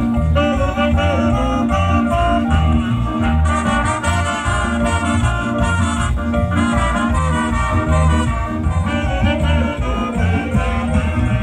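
Dance orchestra music led by trumpets and trombones, played over a steady bass beat for carnival dancing.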